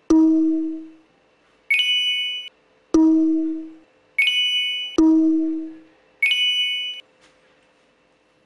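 Three pairs of added chime sound effects. Each pair is a low ding that fades over about a second, followed a second or so later by a bright, high, glittering chime that cuts off sharply.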